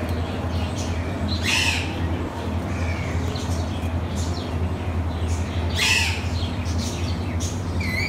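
Caged parakeets squawking: two loud shrill screeches, about a second and a half in and again near six seconds, with softer chirps between. A steady low hum runs underneath.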